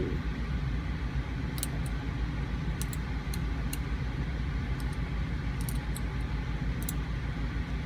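Steel dental hand scaler ticking and scraping against a dog's teeth during scaling: a handful of short, sharp clicks scattered through, over a steady low rumble.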